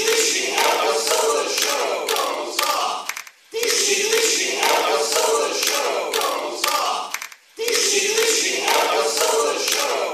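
A large crowd chanting a slogan in unison. The chant is repeated about three times, each time lasting roughly four seconds, with a brief break between.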